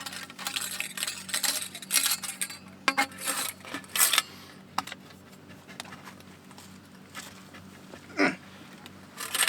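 Small metal parts clinking and rattling as they are handled, a quick run of clatter over the first four seconds, then a few faint clicks.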